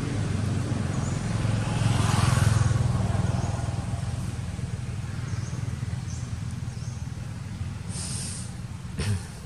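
A motor vehicle's engine running close by, swelling to its loudest about two seconds in and then slowly fading as it passes. A short hiss comes near the end, followed by a brief knock.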